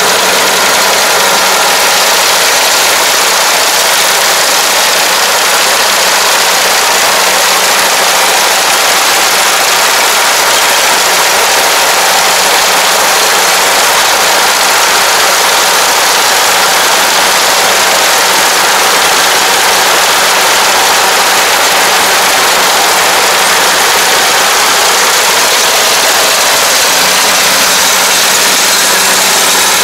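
Combine harvester (ANR460) running steadily under load as it cuts and feeds flattened, lodged rice. The engine and the cutting and threshing machinery make a loud, even din with a steady low hum underneath.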